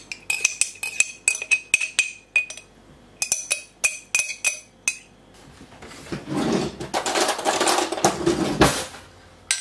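A metal spoon clinking and tapping against a glass jar in a rapid, uneven run of sharp, ringing clinks as soaked mustard seeds are scraped out into a Thermomix bowl. About six seconds in this gives way to a louder, rougher scraping noise that lasts about three seconds.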